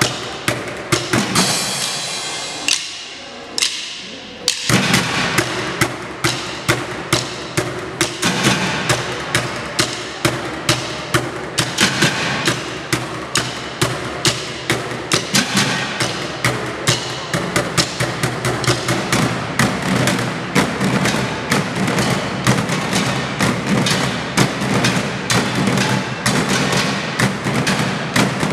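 Percussion ensemble drumming with sticks on plastic jerry cans: sharp, evenly spaced strikes in a fast steady rhythm. The playing drops away about two seconds in and the full group comes back in about four and a half seconds in.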